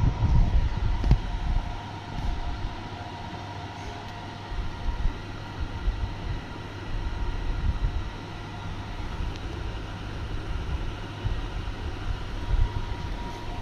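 Uneven low rumble of a moving vehicle, with a faint steady whine running through it.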